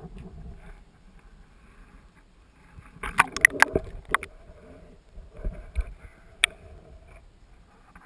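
Muffled water movement heard through an underwater camera housing as a freediver swims toward the surface. A quick run of sharp clicks and knocks comes about three seconds in, and a single click comes later.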